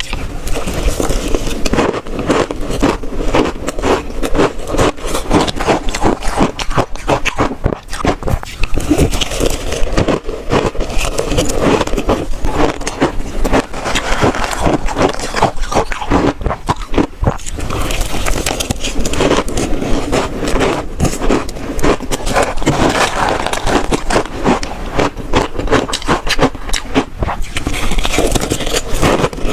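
Close-miked crunching of shaved ice being bitten and chewed: a dense, continuous run of crisp crunches.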